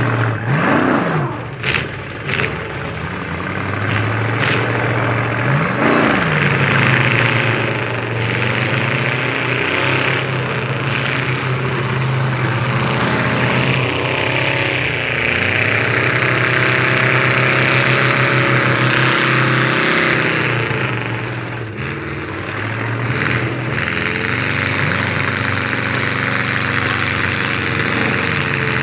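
Full-size demolition derby car engines running and revving hard under load, their pitch rising and falling as the cars push against each other in the mud. A couple of sharp knocks come about two seconds in as the cars collide.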